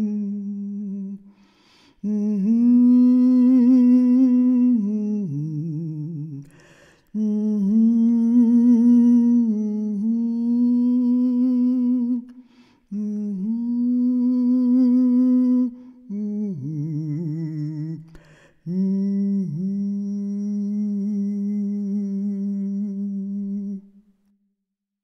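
A single voice humming a slow, wordless tune in long held notes, phrase after phrase with short breaks between them, stopping near the end.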